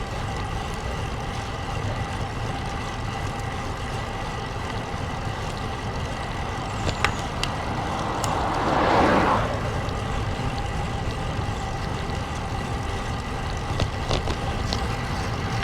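Steady wind rush on an action camera's microphone while riding a road bike in strong, gusty wind. A louder rush swells and fades about halfway through.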